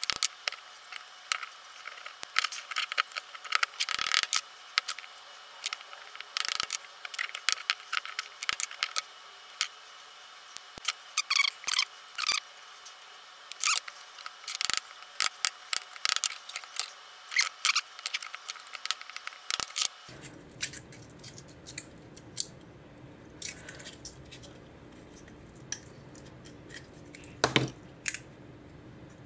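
Screwdriver and scraper blades scraping, clicking and tapping against the plates of a forged carbon-fibre mould as it is pried apart, with many quick sharp clicks. About two-thirds of the way through the sound changes to a low hum with a few scattered handling knocks, one louder near the end.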